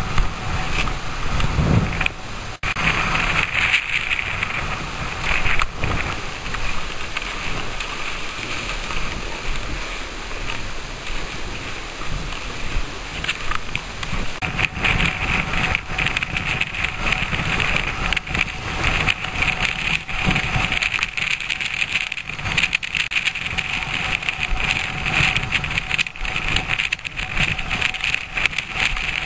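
Wind rumbling on a body-worn camera's microphone, with the steady scrape and crunch of snow as the wearer moves over it.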